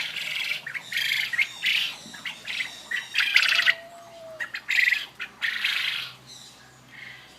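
Birds giving loud, harsh, repeated squawks, several calls following close on one another and overlapping, thinning out in the last second or so.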